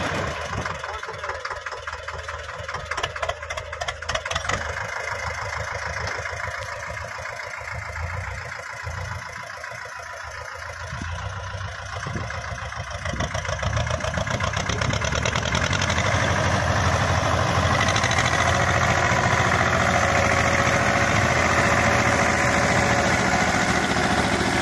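Diesel engine of an Eicher 312 tractor running under load as it pulls a loaded trailer, with a steady pulsing beat. It gets louder about halfway through.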